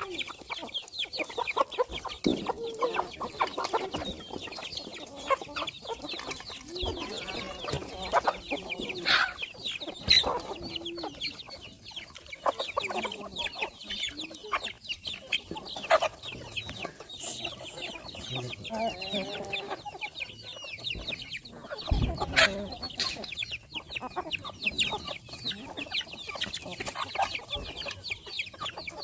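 A large flock of chickens and roosters clucking continuously, many birds calling over one another. Two sharp knocks stand out, about ten seconds in and about two-thirds of the way through.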